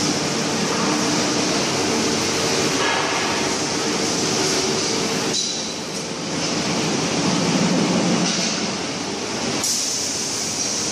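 Steel drum production line machinery running: a loud, steady mechanical din from the drum-forming machines. The sound shifts abruptly twice, about five and a half and nine and a half seconds in.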